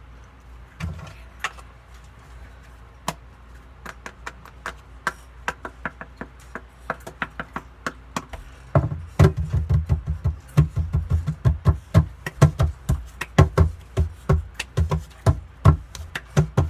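Irregular taps and knocks from hands handling things close to the microphone, growing more frequent, with dull thumps joining in from about nine seconds in.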